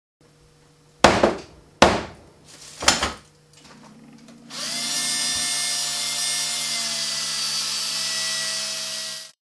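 Three sharp knocks on a workbench, then a small handheld power tool starts, its motor spinning up, and runs steadily for about five seconds before cutting off.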